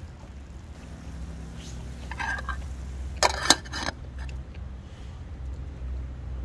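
A metal camping-pot lid set down on the pot, giving a short scrape and then a quick cluster of sharp metal clanks about three seconds in, over a steady low rumble from the portable gas stove burning beneath.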